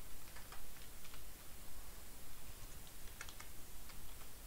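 Computer keyboard keys being pressed: a few scattered keystrokes, with a quick cluster a little after three seconds in.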